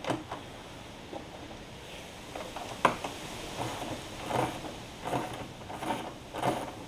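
Socket and 1/4-inch breaker bar working the seat-frame bolts of a Honda Ruckus scooter: a sharp metallic click about three seconds in, then several short, softer knocks and scrapes of the tool on the bolts and frame.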